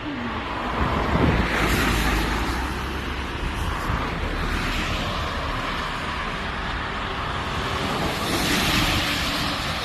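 Wind rushing over the microphone with a low rumble, swelling about a second in and again near the end.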